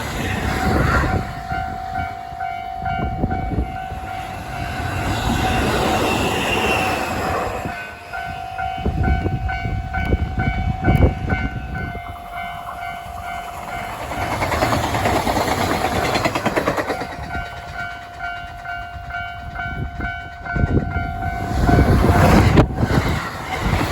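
Japanese level-crossing warning bell ringing in a fast, even, repeated ding. A train rushes past the crossing at speed, its wheels clattering over the rail joints, loudest near the end.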